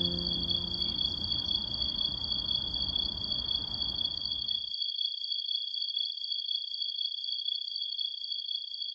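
A steady chorus of insects trilling at two high pitches at once. A low background rumble under it stops suddenly about halfway through.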